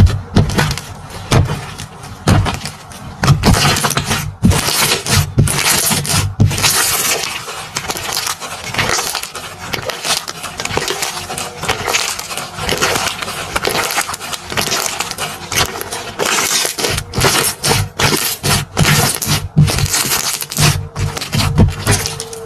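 Slime being squeezed and pressed by hand, giving a dense run of crackling, crunching pops.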